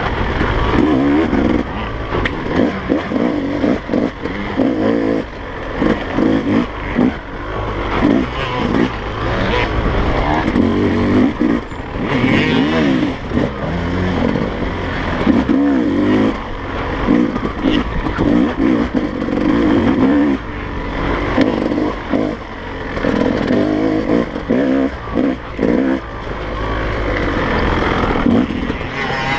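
A 2017 Yamaha YZ250's two-stroke single-cylinder engine revving hard and falling back again and again as the throttle is opened and closed, its pitch rising and dropping every second or so.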